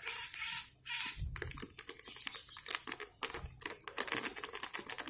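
Plastic bird-feed packet crinkling as it is shaken and tipped, with fine dry feed pattering into a small plastic cup: a run of irregular light clicks and rustles.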